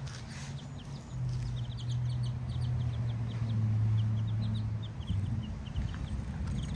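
Young miniature chickens peeping: many short, high, falling cheeps in quick succession, over a steady low hum that swells through the middle and eases off about five seconds in.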